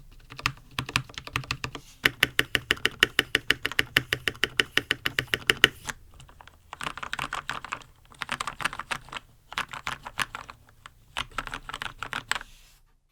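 Typing on a Red Dragon Kumara mechanical keyboard with lubed red linear switches and stock ABS keycaps, dampened with foam and sitting on a desk pad. Fast runs of keystrokes, about eight a second at the busiest, broken by short pauses, stopping just before the end.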